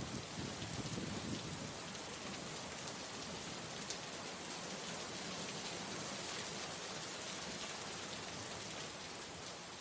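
Steady heavy rain falling, with a low rumble dying away in the first second or two. The rain begins to fade out near the end.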